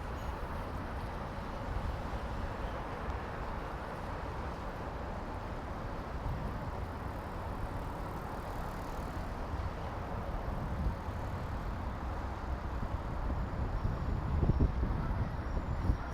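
Steady engine and water hiss of a river sightseeing boat under way, with wind gusting on the microphone, strongest near the end.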